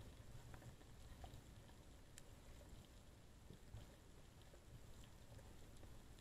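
Near silence underwater: a faint steady low rumble with a few scattered faint clicks.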